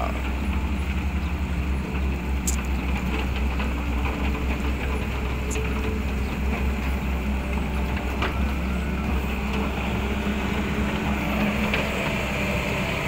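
Caterpillar E120 tracked excavator's diesel engine running steadily, with a few faint clicks over it.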